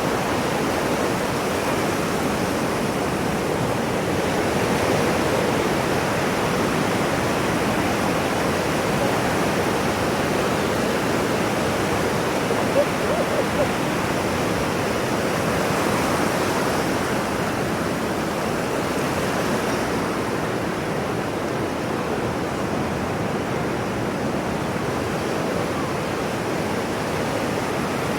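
Ocean surf: a steady rushing wash of waves that swells and eases slowly, with a few short louder blips about halfway through.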